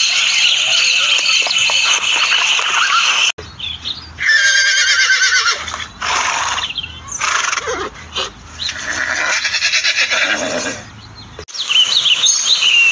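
Recorded animal calls from Google's 3D animals, changing at sharp cuts: a zebra calling first, then a horse whinnying with a quavering pitch about a second after the change, followed by more horse calls.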